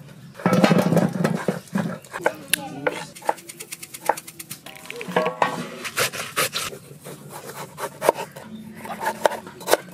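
Kitchen knife chopping vegetables on a wooden cutting board: a run of sharp knocks, thickest in the second half. Voices can be heard in the background during the first few seconds.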